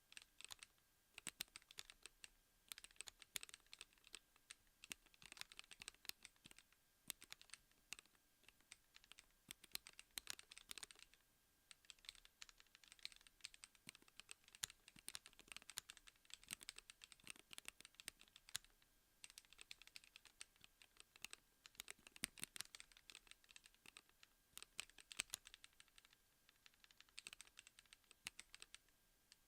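Gravity 36 keyboard being typed on: a fast, uneven run of key clicks with a brief pause about halfway through.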